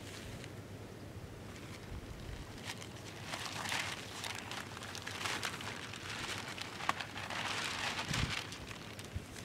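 A plastic sheet being unfolded and shaken out, rustling and crinkling in bursts from about three seconds in, with a few sharp crackles.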